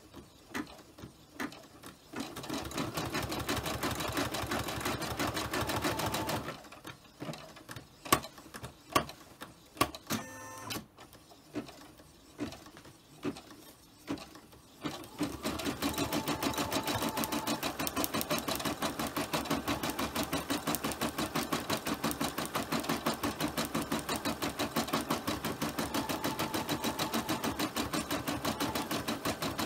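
Home embroidery machine stitching out a design: the needle runs in a fast, even rattle of many strokes a second. Around the middle the stitching breaks off into scattered clicks for several seconds, then runs steadily again for the rest.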